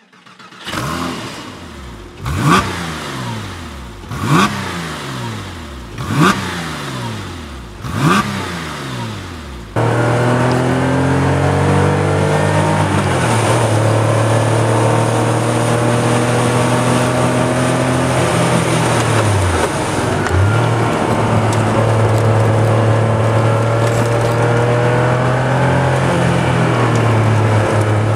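Air-cooled flat-six of a Porsche 911 Carrera 3.2 blipped four times, each rev shooting up and falling away. About ten seconds in it gives way to the engine heard from inside the cabin, running loud and steady under load. Around twenty seconds in the pitch dips briefly and comes back up.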